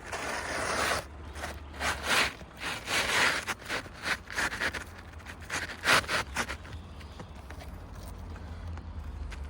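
An asphalt architectural roofing shingle is being slid into place under the shingle course above it. The gritty shingle scrapes and rubs against the others in a series of short, uneven strokes. The scraping stops about two-thirds of the way through.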